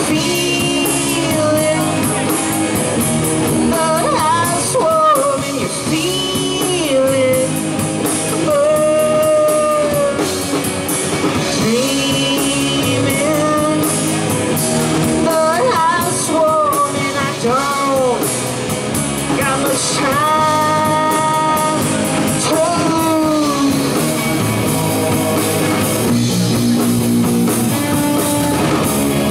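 Live rock band playing: electric guitars over a drum kit, with a lead line whose notes bend and slide in pitch.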